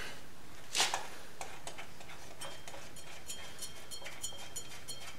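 A single knock a little under a second in, then a ratchet wrench clicking evenly, about four or five clicks a second, as it backs off the motorcycle's rear-axle chain adjuster bolts.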